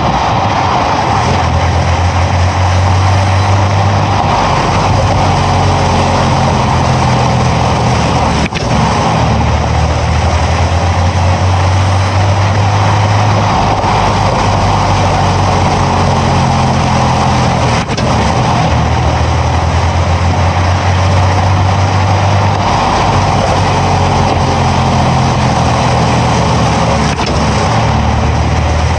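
Underbody road noise from a Nissan driving at about 40–50 km/h: a steady roar of tyres and air with a low exhaust and drivetrain hum that swells and fades every few seconds. Two brief knocks sound, about a third of the way in and again past halfway.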